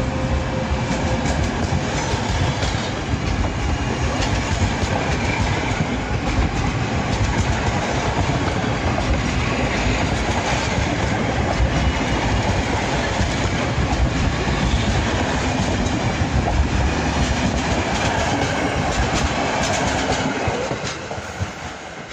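PKP Intercity passenger coaches rolling past close by, a steady rumble with wheels clicking over rail joints. The sound drops away about 21 seconds in as the last coach clears.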